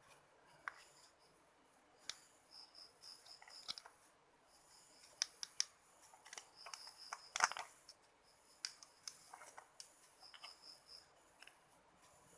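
Faint scattered clicks and snips of small tools and electronic parts being handled, the loudest about halfway through. Behind them, a high chirp repeats in short runs of four or five notes.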